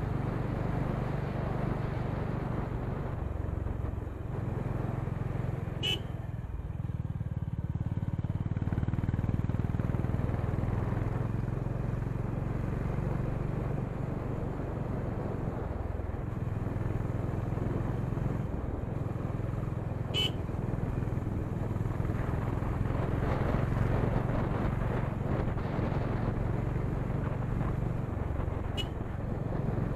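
Honda H'ness CB350's air-cooled single-cylinder engine running under way, with a steady exhaust note that dips briefly a couple of times as the throttle eases. Three short high-pitched beeps cut through it.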